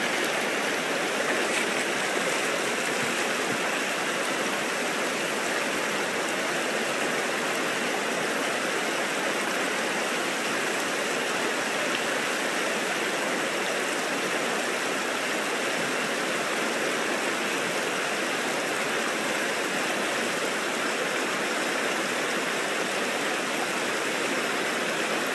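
Shallow, rocky river running steadily over stones, a constant rushing.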